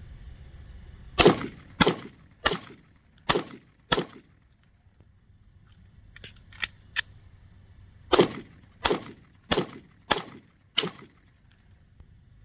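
Canik SFX Rival 9mm pistol firing ten shots in two strings of five, about two-thirds of a second apart. Between the strings come a few lighter clicks of a magazine change as the empty magazine drops.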